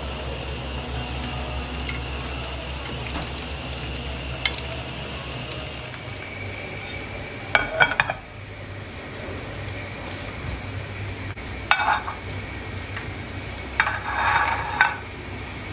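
Battered cauliflower frying in oil in a pan, a steady sizzle, with ceramic clinks and knocks: a plate set down about halfway through and small ceramic ramekins clinked onto it near the end.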